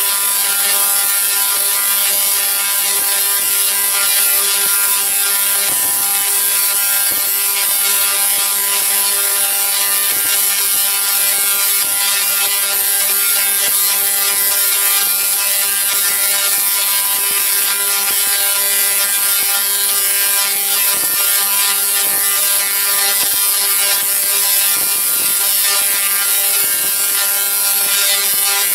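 Large spark-gap Tesla coil firing continuously from a synchronous rotary spark gap at 200 breaks per second, its arcs and streamers making a loud, steady, harsh buzz with a crackling hiss on top.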